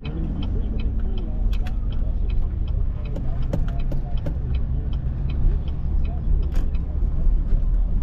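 Inside a moving car: a steady low road and engine rumble, with the turn-signal indicator clicking in an even run through a turn. The clicking thins out about two-thirds of the way through.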